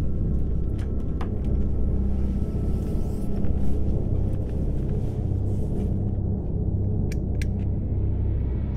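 A deep, steady low rumbling drone from a horror film score, with a few faint clicks about a second in and near the end.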